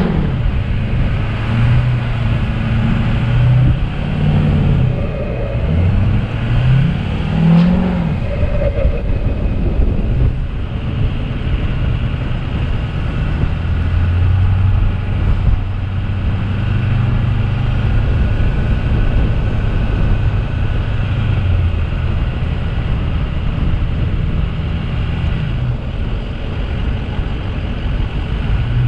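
A vehicle's engine under way, its pitch climbing and dropping several times over the first eight seconds, then running at a steady pitch.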